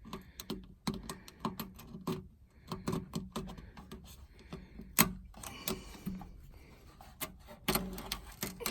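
Irregular light clicks and taps from hands working duct tape against the sheet-metal wall of an electrical cabinet, pressing it down to catch drill fragments. One sharper click comes about five seconds in.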